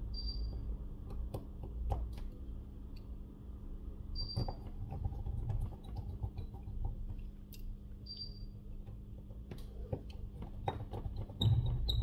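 Small clicks and taps of a precision screwdriver and fingers working on a phone's screws and internal parts, over a steady low hum. Three brief high squeaks come about four seconds apart.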